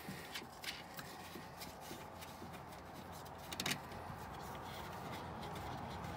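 A hand rustling and scraping against the felt trunk liner and around the taillight mounting, with small scattered clicks and a sharper cluster of clicks about three and a half seconds in, over a faint low steady hum.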